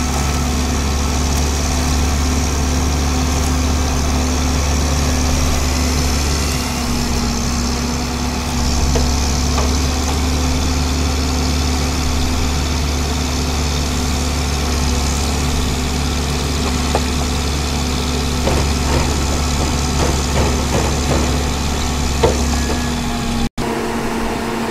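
Ajax Argo 4500 self-loading concrete mixer's diesel engine running steadily while its loader bucket lifts and tips sand into the drum. In the second half there are scattered light clicks and knocks over the engine drone.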